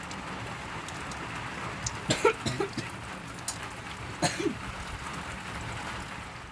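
Steady rain falling, with a couple of short, sharp clicks or knocks about two seconds in and again about four seconds in.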